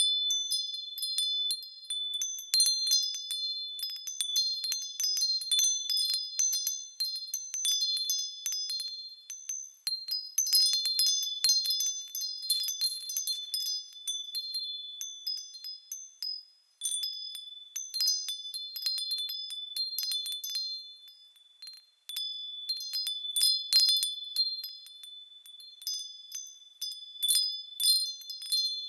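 Small metal bells swaying and ringing, many overlapping high, clear strikes that ring on. The ringing dies away twice, a little past halfway and about three quarters in, and each time starts up again suddenly.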